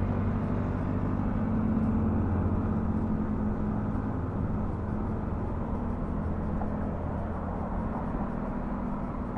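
Motorcycle engine running steadily at low revs in slow, jammed traffic, a constant low hum with road and traffic noise around it.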